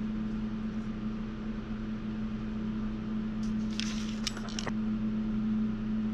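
A steady low machine hum, with a brief rustle and a few light clicks about four seconds in as paper and a small sculpting tool are handled.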